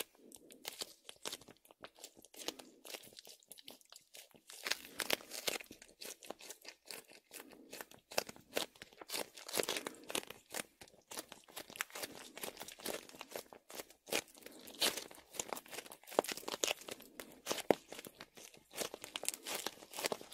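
Hands squeezing and kneading a nano tape ball filled with shaving foam and laundry starch: dense, irregular crackling and squishing of the foam, with the tape crinkling.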